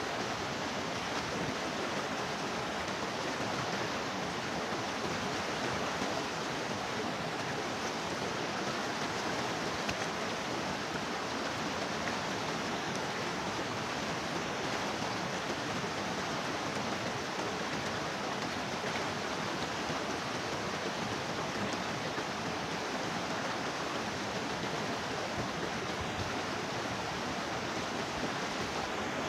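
A steady, unbroken rush of flowing water.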